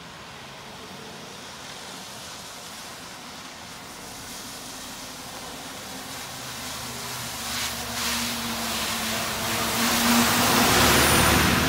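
A bus approaching and passing on a wet road: the hiss of its tyres on wet asphalt and its engine grow steadily louder, loudest near the end. A steady hiss of rain runs underneath.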